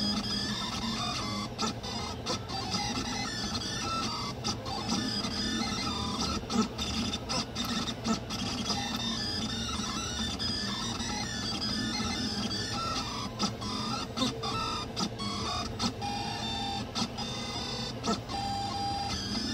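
3D printer printing, its stepper motors whining in constantly shifting, gliding pitches as the print head moves, with short ticks now and then over the steady whir of the hotend's cooling fan.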